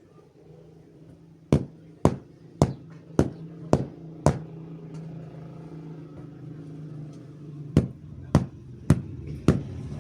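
A blanket being beaten or snapped out to shake the dust from it: sharp whacks about twice a second, six in a row, a pause of a few seconds, then another run. A steady low hum runs underneath.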